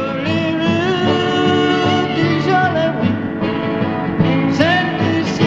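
Country-style film soundtrack music: guitar and bass under a melody that slides up into its notes.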